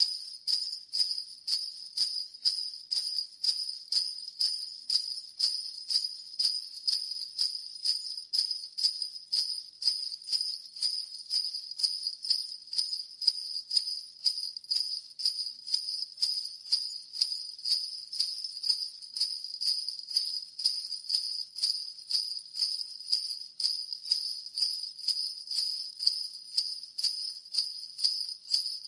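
Jingle bells (sleigh bells) shaken in a steady rhythm, about two shakes a second, each shake a bright metallic jingle.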